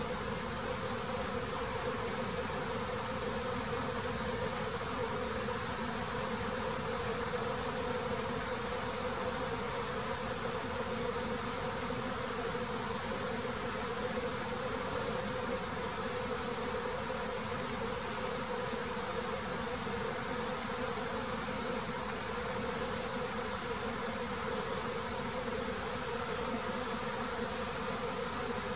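Honeybees buzzing in a steady, unbroken hum at the hive, the activity the beekeeper sees from his bees before bad weather and heavy rain.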